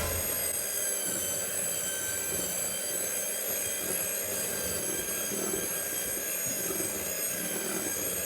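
Electric hand mixer running steadily at high speed, beating cake batter, with a constant high whine.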